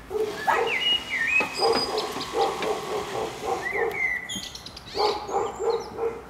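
A dog barking in quick runs of about three barks a second, pausing briefly before a second run near the end, with birds whistling over it.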